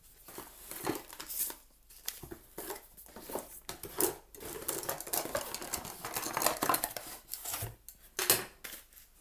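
Packaging and small items being handled on a table: irregular rustling with scattered clicks and taps.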